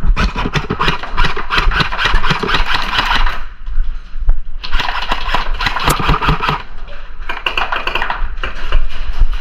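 Airsoft electric gun firing on full auto in three long bursts of rapid mechanical clatter, with short pauses between them.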